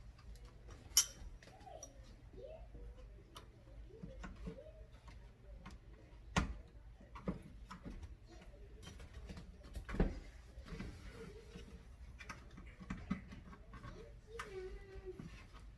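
Scattered light clicks and knocks of objects being handled, the sharpest about a second in, again past the middle and around two-thirds through, over a faint wavering voice-like murmur.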